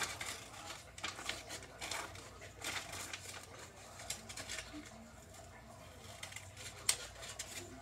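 Scissors snipping through paper in short, irregular cuts while cutting out a circle, with paper rustling. There is one sharp click about seven seconds in.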